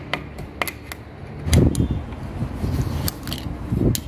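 Scattered metal clicks and knocks from a screwdriver and hands working on the open aluminium housing of a Ford F-150 electric power steering rack. The loudest knocks come about one and a half seconds in and again near the end.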